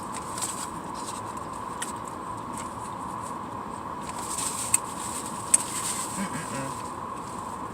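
Close-miked eating sounds from someone chewing a jalapeno slider: soft wet mouth noises and small crackles. Two sharp clicks come midway, all over a steady high-pitched hum.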